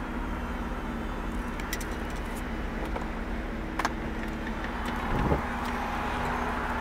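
2017 Chevrolet Camaro RS power convertible top folding down, with a few clicks and then a low thump about five seconds in as the top works back, and a motor whir building in the second half. Under it runs the steady idle of the car's 3.6-litre V6 with its aftermarket Borla exhaust.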